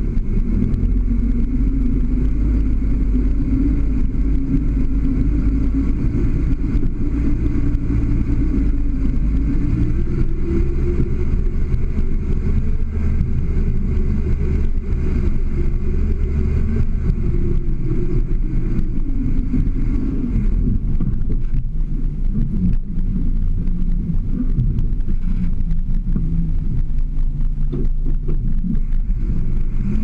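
Toyota FJ40 Land Cruiser's engine running at low, steady revs as it crawls over rocks and roots. The engine note rises a little about ten seconds in and eases off again, with scattered knocks in the second half.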